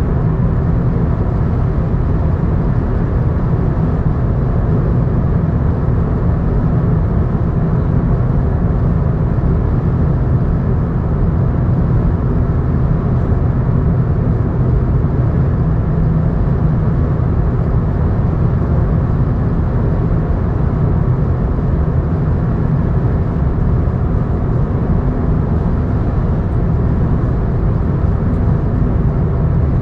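Steady, loud rumble of a vehicle on the move, road and engine noise that holds even throughout, heaviest in the low end.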